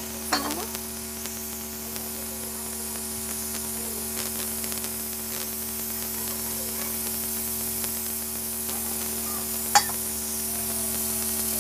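Hands rubbing and turning dry flour in a steel plate, a soft scraping and rustling, over a steady hum and hiss. A sharp metallic click about ten seconds in.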